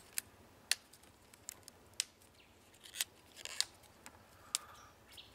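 Tough outer leaves of a globe artichoke being snapped off by hand: a series of short, crisp snaps about half a second to a second apart, with a brief rustle partway through.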